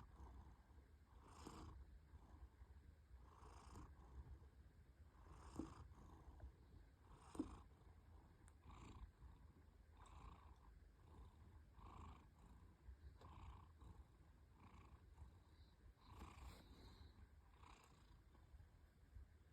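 Domestic cat purring faintly while tired after play, a breath cycle coming every second or two. Two short clicks stand out, about five and a half and seven and a half seconds in.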